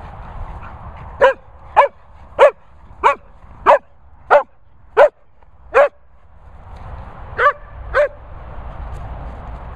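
Sprocker spaniel barking: eight sharp barks at about one every two-thirds of a second, a short pause, then two more.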